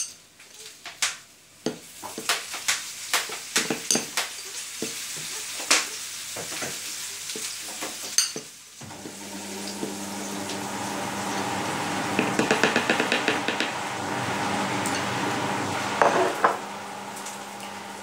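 A small utensil scraping and clicking against a ceramic plate as chopped frozen herbs are pushed off into a glass jar. About nine seconds in, a steady sizzle of breaded tofu slices frying in a pan comes in with a low hum, and a quick run of scraping taps follows a few seconds later.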